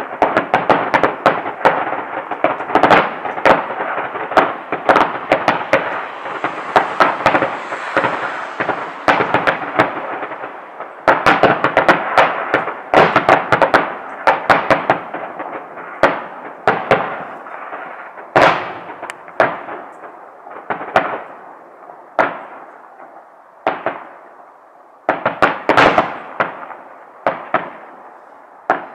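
Aerial firework shells bursting in a display. A dense, rapid barrage of bangs thins after about ten seconds to single reports roughly a second apart, each trailing off, then comes another quick cluster near the end.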